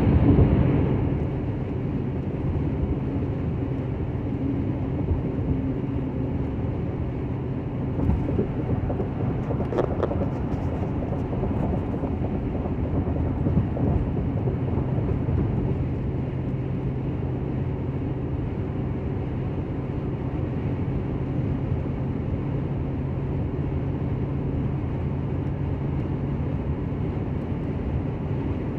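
Car cruising at highway speed, heard from inside the cabin: steady tyre and road noise with a constant low hum.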